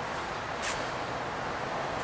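Steady background hiss, with a faint brief rustle less than a second in.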